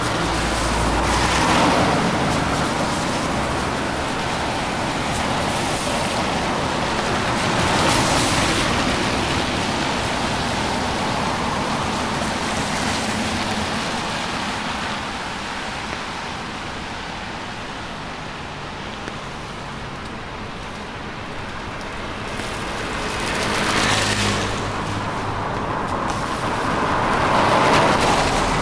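Steady rain with cars passing on a wet road, each one's tyre hiss swelling and fading over a couple of seconds: one just after the start, one about a quarter of the way in, and two near the end.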